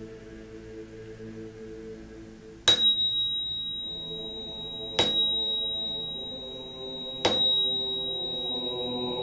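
A bell struck three times, about two and a half seconds apart, each strike ringing on in a high, pure tone. It signals the close of the reading and the start of meditation. Quiet background music runs underneath.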